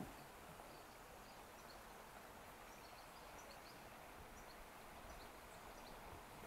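Near-quiet outdoor ambience: a faint steady hiss with scattered faint, short, high bird peeps throughout.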